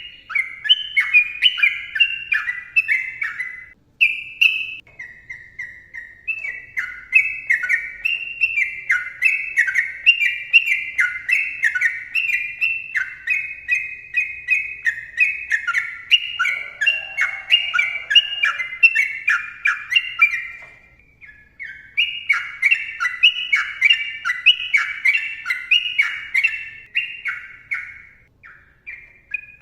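Yellow-vented bulbul singing a long, rapid, dense run of short, clear notes that each slide downward, breaking off briefly twice.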